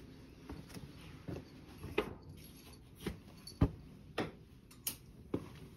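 A series of about eight soft, short clicks or taps at irregular intervals, the sharpest about two seconds in and again a little past three and a half seconds.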